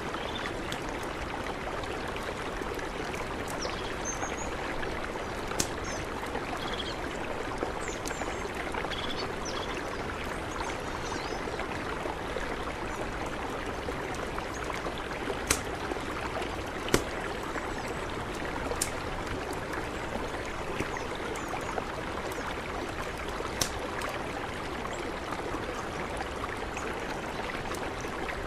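Mountain river rushing steadily over rocks, with a few sharp clicks or knocks scattered through it and some faint high chirps.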